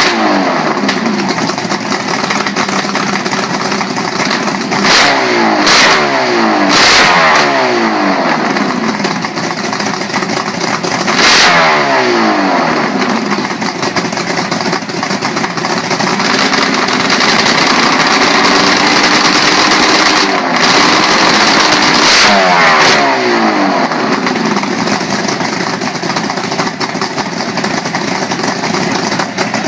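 Two-stroke eight-cylinder engine running and being revved again and again, each blip of the throttle falling away back towards idle.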